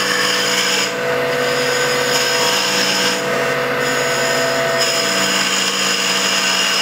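Wood lathe spinning a walnut blank at high speed while a duplicator's cutting tip shaves it: a steady machine hum under a hissing cut that changes in strength a few times as the tip moves along the template.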